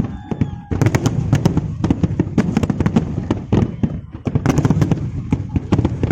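Fireworks display: a rapid, continuous barrage of overlapping bangs and crackles, with brief lulls about half a second in and around four seconds in.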